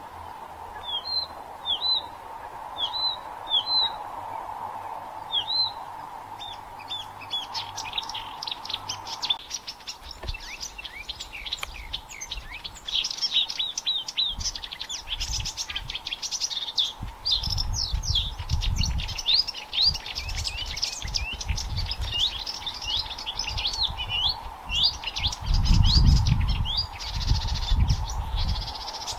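Blyth's reed warbler singing. It opens with short high notes repeated in pairs with gaps between them, then about seven seconds in breaks into a fast, continuous song of varied high notes. Low rumbles come and go under the song in its second half.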